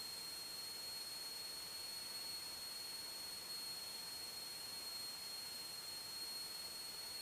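Steady electronic hiss with a thin, high-pitched whine held at one pitch: electrical line noise in the recording. No engine sound comes through.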